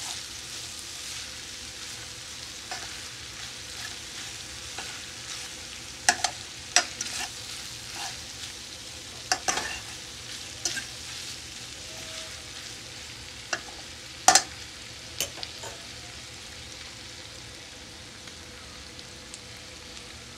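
Chicken and bell pepper strips sizzling in a nonstick skillet as they are stirred, with scattered sharp clacks of the stirring utensil knocking against the pan.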